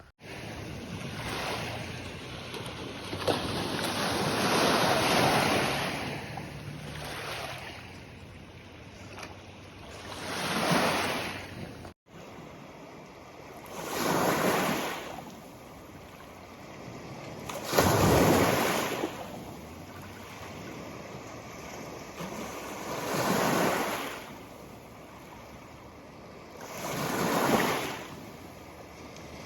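Lake Huron waves washing onto the shore, each one swelling and falling away every four seconds or so.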